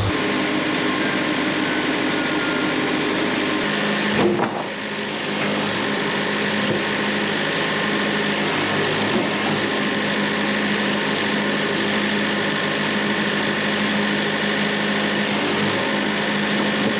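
Portable band sawmill running steadily under load as the blade cuts through a poplar log. A brief knock comes about four seconds in, and the machine's note shifts after it.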